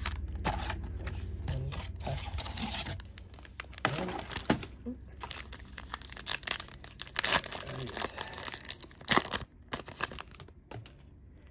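Trading card packs being torn open and their wrappers crinkled: a run of rips and rustling, the sharpest tear about nine seconds in, going quieter near the end.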